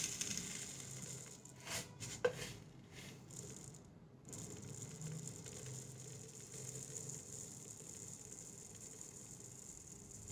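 Mustard seeds trickling from a plastic jar into a small glass jar: a faint, soft patter of seeds on glass, with a few light clicks about two seconds in.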